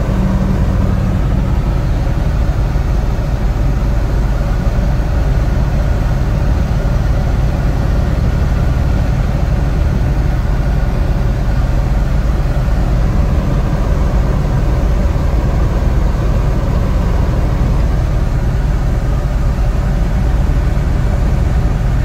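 Semi truck's engine and road noise heard from inside the cab while driving on a snow-covered highway: a loud, steady drone.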